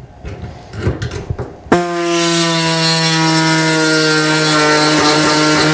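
Pneumatic reciprocating body saw starting suddenly a little under two seconds in and running with a steady buzz, its pitch sagging slightly as it cuts through thin-gauge sheet steel. Before it starts, light knocks from handling the tool and panel.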